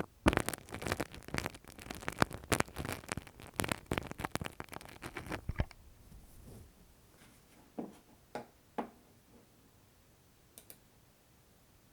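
Ear-cleaning ASMR sounds: a tool scratching and rubbing close against the microphone in a dense run of crackles and scrapes, which stops about five and a half seconds in, followed by a few separate soft taps.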